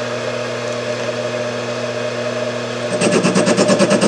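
Mini lathe spindle running at about 584 rpm with a steady motor and gear hum. About three seconds in, the facing tool engages the metal workpiece and a louder, fast rhythmic chatter starts, roughly ten beats a second.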